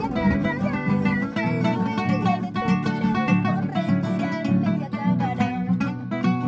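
Two nylon-string classical guitars playing together, plucked and strummed.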